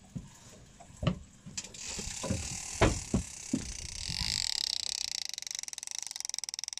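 Large conventional (star- or lever-drag) fishing reel with its ratchet ticking rapidly and steadily as the spool turns, starting about halfway through. Before it come a few sharp knocks from the rod and reel being handled.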